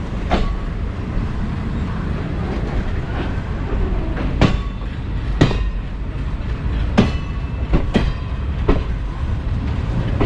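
Passenger train coach running on the track: a steady low rumble with irregular sharp clacks of the wheels over rail joints, a few of them ringing.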